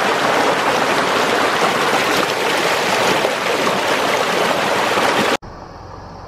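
A rocky creek rushing and splashing over rocks in a small cascade: a loud, steady rush of water that cuts off abruptly about five seconds in, giving way to a much quieter background with a faint low hum.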